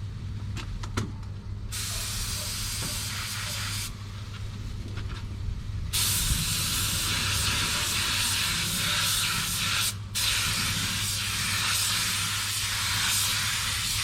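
Paint spray gun hissing as clear coat is sprayed onto a car body panel, in separate passes: a short burst about two seconds in, then a longer spray from about six seconds on with a brief break near ten seconds. A steady low hum runs underneath.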